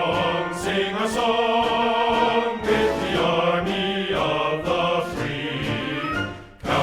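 Background music with choral singing.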